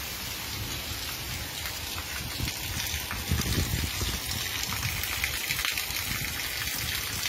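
Heavy rain pouring down steadily, with a low rumble underneath that swells about three seconds in.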